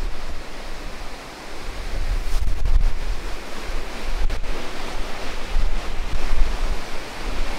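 Wind buffeting the microphone over the steady rush of rough sea, with white water churning along a cruise ship's hull. The gusts come through as an uneven low rumble.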